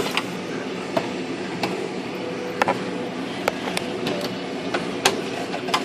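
Scattered sharp clicks and knocks of an IBM Selectric III typewriter's plastic top shell being handled and opened, its hidden case latches just released, over a steady low hum.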